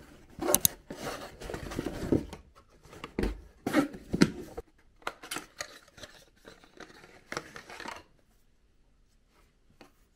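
A cardboard parcel being opened by hand: irregular tearing, scraping and rustling of cardboard, then softer handling of a small product carton. It stops about eight seconds in.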